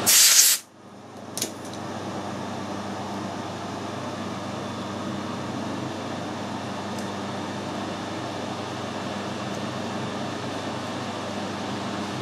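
Steady mechanical hum of workshop machinery. It opens with a loud half-second rush of noise, and a single sharp click follows about a second later.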